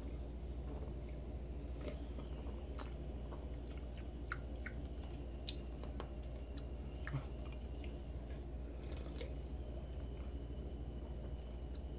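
Quiet mouth sounds of a person tasting a soda: scattered small clicks and smacks over a steady low hum.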